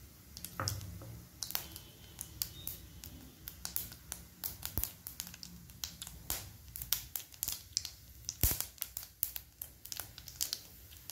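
Mustard seeds popping and crackling in hot oil in a clay pot: irregular sharp pops that come thicker and faster in the second half.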